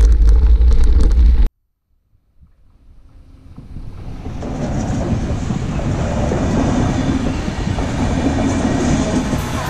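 A passenger train running past a level crossing: a steady rumble of wheels on rail that fades in over the first few seconds and then holds. Before it, about a second and a half of wind buffeting the microphone on a bike ride, which cuts off suddenly.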